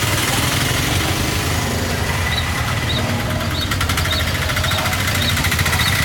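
A motor vehicle engine running steadily with an even pulsing rumble, joined from about halfway through by a short high chirp repeating not quite twice a second.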